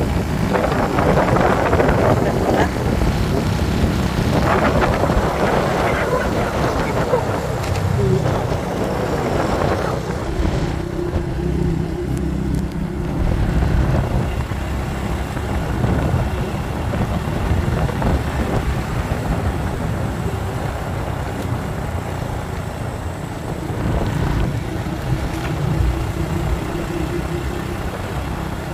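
Motorcycle riding along at road speed: engine running under a steady rush of wind on the microphone, rougher in the first third.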